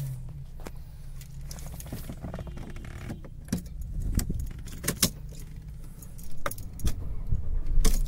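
Car keys jangling, with a string of sharp clicks, as the key is worked in the ignition of a Mercedes CLA 200. Near the end comes a louder burst as the engine starts, settling into a low steady hum.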